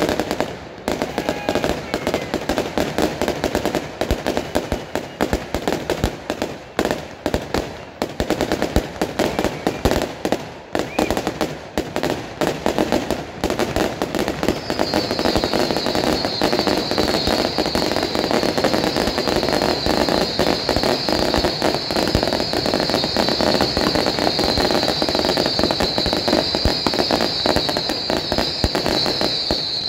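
Consumer firework battery firing a rapid, unbroken stream of shots and crackling bursts. About halfway through, a steady high-pitched hiss or whistle joins in and keeps going.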